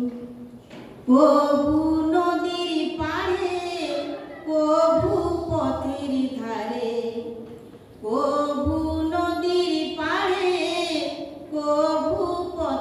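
A female voice singing a slow melody in long held phrases, breaking off briefly near the start and again about eight seconds in.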